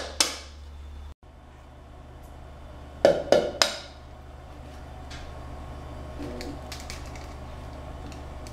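Eggs tapped and cracked on the rim of a mixing bowl: a sharp tap just after the start, then three quick taps about three seconds in, followed by faint clicks of shell, over a low steady hum.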